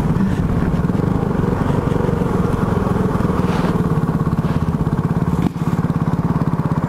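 KTM RC390's single-cylinder engine running steadily under the riders with an even pulsing beat, with a brief dip about five and a half seconds in.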